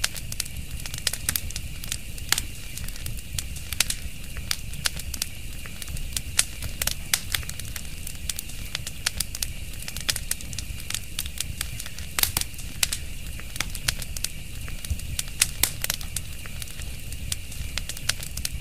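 A fire crackling: irregular sharp pops and snaps, several a second, over a low steady rumble.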